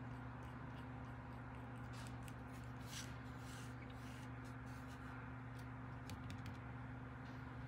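A steady low electrical hum, with faint rustles and light ticks of a paintbrush and a small paper card being handled, thickest about three to four seconds in.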